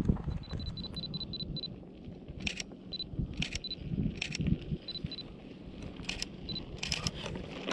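DSLR camera shooting: short high beeps as the autofocus locks, a quick run of about eight in the first second and a half and then scattered single and double beeps, with sharp shutter clicks between them.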